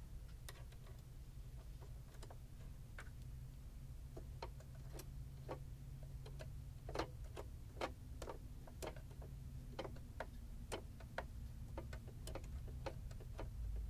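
Faint, irregular little metal ticks and clicks, about two a second, from a small screwdriver working the needle-plate screws of a sewing machine, over a steady low hum.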